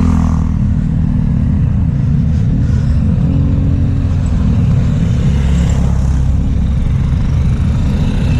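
Road traffic, cars and motorcycles, heard as a steady low rumble.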